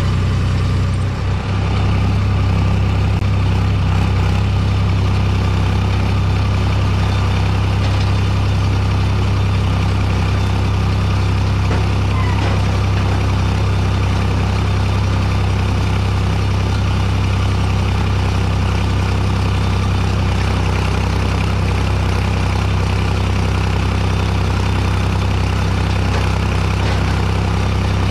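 Farm tractor's diesel engine running steadily at a constant speed, a low even hum.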